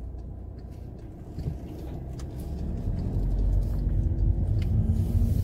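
Car engine and road noise heard from inside the cabin: a steady low rumble that grows steadily louder from about a second and a half in.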